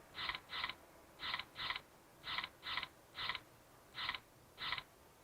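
Short electronic beeps from a Tuya burglar alarm system, ten in all at uneven spacing, the first six in quick pairs and the rest singly, while its timer is being reset.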